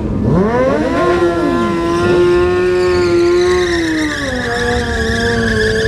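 Sport motorcycle engine revving up sharply, held at high revs for a couple of seconds, then easing off to a lower steady pitch.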